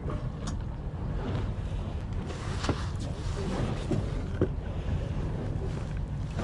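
Steady low rumble aboard a small fishing boat at sea, with a few faint light ticks.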